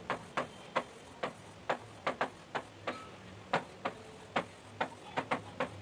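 Chalk tapping and scratching on a chalkboard while writing figures: a string of short, sharp, irregular clicks, a few per second.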